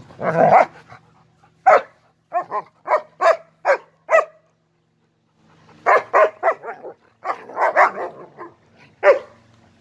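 German shepherds barking in play, in short sharp barks: a run of them over the first four seconds, a pause of about a second and a half, then a quicker volley and one last bark near the end.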